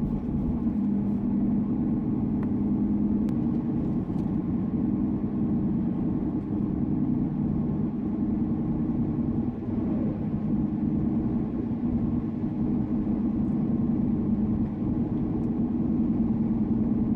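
A car running: a steady, low drone of engine and road noise.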